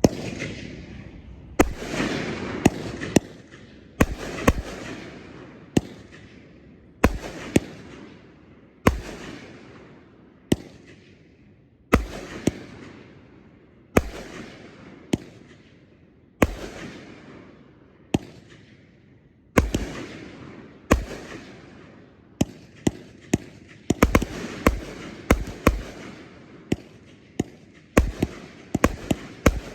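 A 25-shot, 500-gram consumer firework cake (Happy Family 'Desperados') firing shot after shot. Each sharp bang is followed by a fading hiss. The shots come every second or two at first and quicken to several a second near the end.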